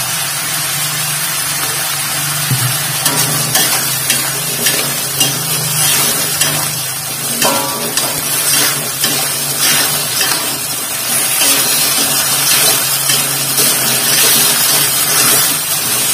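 Salted squid, onion and chillies sizzling in a hot wok with oyster sauce, while a metal spatula scrapes and tosses the stir-fry against the pan, the scrapes and clatters starting a few seconds in and growing busier toward the end.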